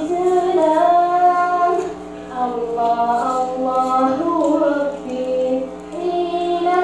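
A woman singing solo into a handheld microphone, her voice amplified through PA loudspeakers, in long held notes that glide between pitches, with a steady low electrical hum underneath.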